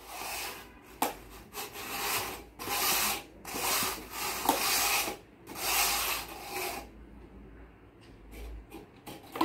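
Two disposable plastic cups slid and shuffled across a tabletop: a run of about seven scraping swishes, each under a second, then fainter scrapes near the end as the cups come to rest.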